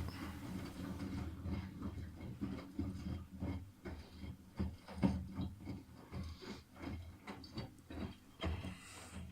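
Miele Softtronic front-loading washing machine in its wash cycle: the drum turns with a steady low motor hum and irregular knocks and clunks, two or three a second.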